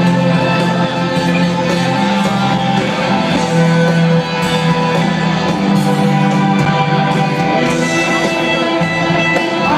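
A rock band playing live through a large concert sound system, electric guitars to the fore with long sustained notes.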